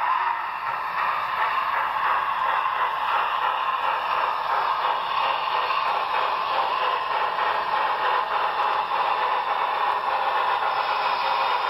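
HO scale model steam locomotive and passenger cars running past on the layout track, a steady hiss-like rolling noise with a faint rapid clatter.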